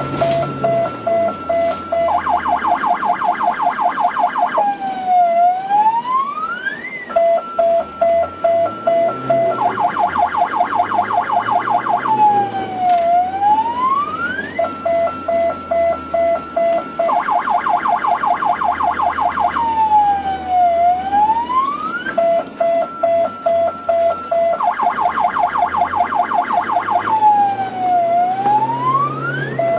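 Electronic siren cycling through a repeating sequence: a high-low two-tone alternation, then a fast warble, then a sweep that falls and rises again, the whole pattern coming round about every seven and a half seconds. A low rumble runs underneath.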